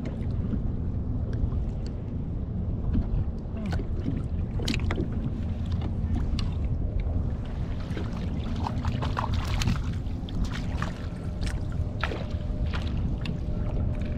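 Steady low rumble of wind and water around a fishing kayak, with scattered small clicks and knocks from fish and gear being handled, most of them in the second half.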